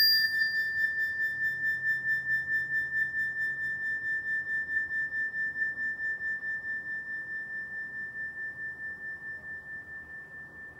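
A single bell-like metal tone, struck once, ringing and slowly fading with a steady wobble pulsing about four times a second.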